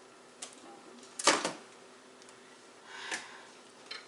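Food containers being handled while a fridge is cleared out: a few light clicks, one sharper knock about a second in, and a softer clatter near the end.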